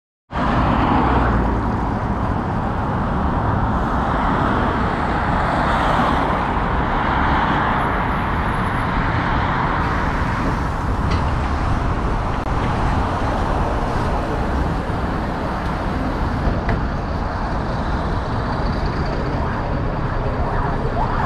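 Steady city traffic and bus noise: a Mercedes-Benz city bus running at a curbside stop amid road traffic, with no single event standing out.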